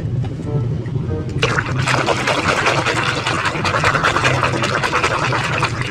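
Water splashing over a muddy toy as it is washed, starting about a second and a half in and going on steadily.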